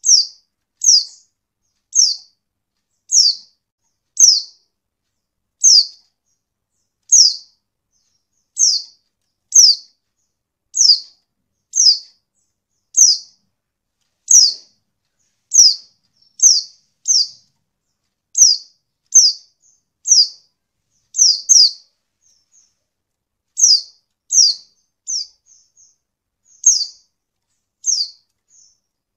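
Pleci (white-eye) giving short, high chirps, each sliding slightly down in pitch, about one a second, with a brief break about three-quarters of the way through. The keeper presents it as a female pleci's call, used as a lure to set reluctant males singing.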